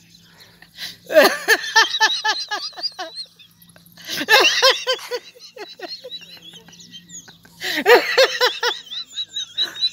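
A man laughing heartily in three long runs of rapid, pulsing ha-ha-ha: the first about a second in, the next around four seconds in, the last near the end.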